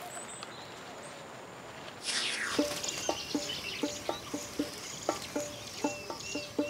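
Wildlife ambience with a steady high insect drone for about two seconds. Then a sound sweeps down in pitch, and soft plucked-string background music comes in with faint bird chirps over it.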